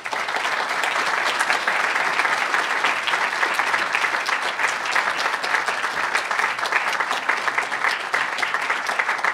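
Audience applauding steadily at the end of a speech, a dense patter of many hands clapping.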